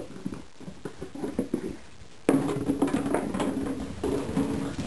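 Golden retriever puppies playing on a tile floor: paws and claws pattering and scuffling. Just after two seconds in, a puppy starts vocalizing with a steady pitched note that lasts over a second.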